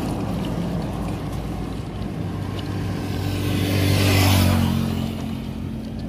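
A motor vehicle passing on the road, its engine hum and tyre hiss swelling to a peak about four seconds in and then fading, over petrol glugging from an upturned plastic bottle into a car's fuel filler neck.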